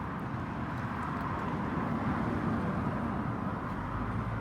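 A road vehicle passing by: steady tyre and engine noise that swells to a peak around the middle and then eases off.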